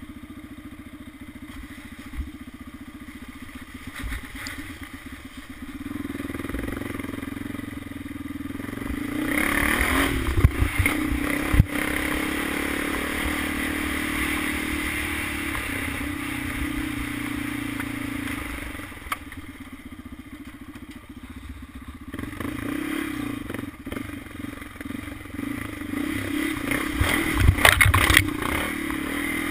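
Honda 400EX ATV's single-cylinder four-stroke engine running under throttle on a trail. It picks up after a few seconds, eases off about two-thirds of the way through, then climbs again. Knocks and rattles from the machine over rough ground come about ten to twelve seconds in, with a louder burst of clattering near the end.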